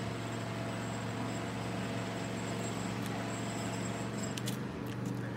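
Steady low hum of an urban street background, with a few short clicks near the end.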